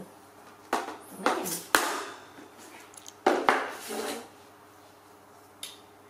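Hollow plastic stool knocking and clattering on a hard tiled floor as a pet monkey carries it and sets it down. There are a few sharp knocks about a second in and two more about three seconds in.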